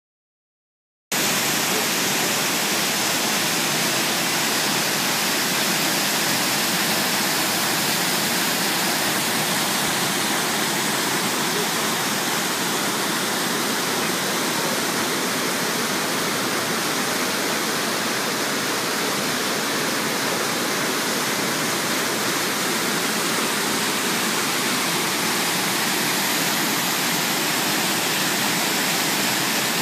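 A waterfall's steady rush of falling water, starting abruptly about a second in.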